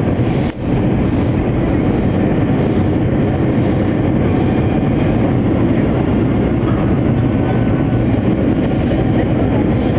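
Steady cabin roar inside an Airbus A321 on approach, engine and airflow noise heavy in the low end, with a brief dip about half a second in.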